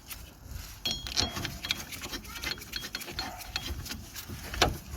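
Light metallic clicks, taps and scraping as a wheel bearing cassette's mounting bolt is fitted and turned in by hand, with a louder clink about four and a half seconds in.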